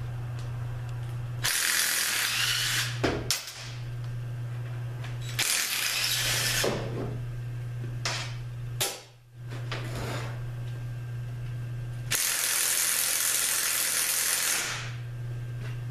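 Power ratchet run in three bursts, the last and longest near the end, spinning out transmission case bolts, with a sharp click or two in between. A steady low hum sits underneath.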